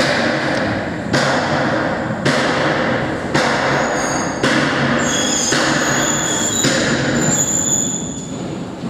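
Regular thuds about once a second, each ringing on in the bare room. From about four seconds in, several high metallic ringing tones sound over them.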